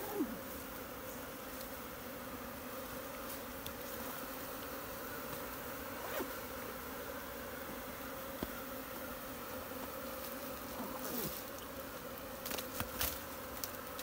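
A colony of honey bees buzzing in a steady, continuous hum as it is moved from a hollow log into a hive box. A few sharp clicks come near the end.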